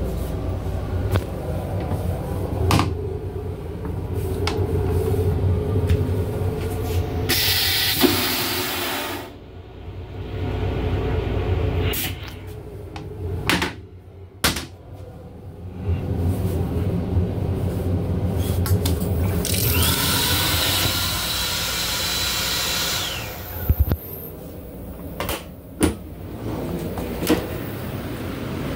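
Steady low rumble of a moving M8 commuter railcar heard from inside its restroom, with scattered clicks and knocks. About seven seconds in there is a two-second rushing noise. About two-thirds of the way in, the toilet flushes with a loud rush lasting about three seconds.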